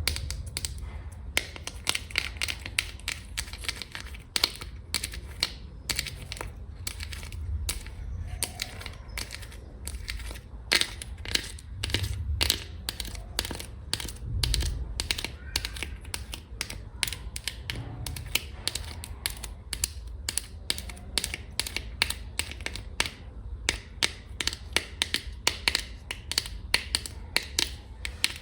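Long fingernails tapping quickly and hard on a hard surface, sharp clicks a few times a second, with a low handling rumble underneath.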